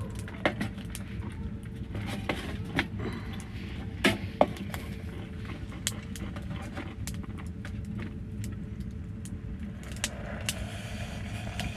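Clicks and knocks of a metal coffee percolator being handled on a small wood stove, over a steady low rumble. About ten seconds in, coffee pours from the percolator into a metal cup.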